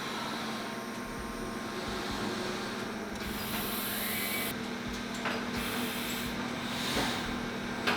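CNC machine running, its spindle drilling and ball-end milling coolant passages in an engine block, with a steady hum. A louder high hiss comes in for about a second in the middle.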